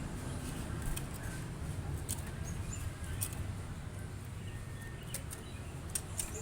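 Cinereous tit calling faintly: scattered sharp clicks and a few short chirps over a steady low hum.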